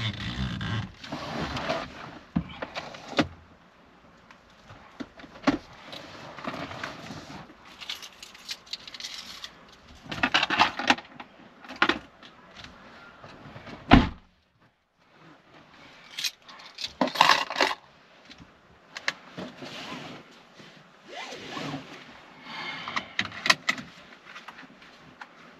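Handling noises inside a parked car with the engine off: keys jangling, rustling, and scattered clicks as the driver settles into the seat. One heavy thump about halfway through is the loudest sound.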